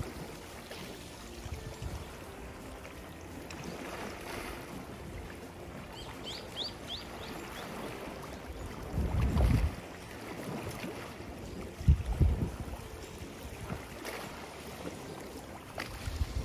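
Small waves lapping and washing over a shallow coral-gravel shore, with wind buffeting the microphone in a few gusts, the loudest about nine and twelve seconds in. A quick run of four or five high chirps comes about six seconds in.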